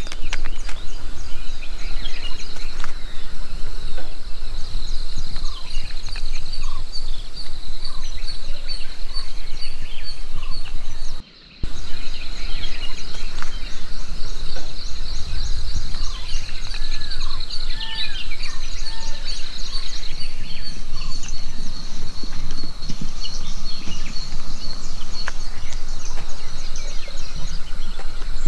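Outdoor ambience of wild birds calling with short chirps over a steady, high-pitched trill of rapid pulses, with a low wind rumble underneath. The sound drops out for a moment about eleven seconds in.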